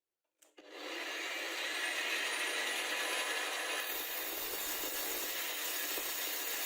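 A power tool starting up about half a second in and running steadily with a rough abrasive grinding or rubbing noise, a faint high whine rising as it comes up to speed.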